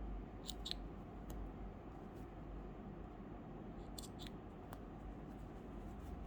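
Small scissors snipping the cross stitches of a dress seam, a few quick, faint snips, a cluster about half a second in and another about four seconds in.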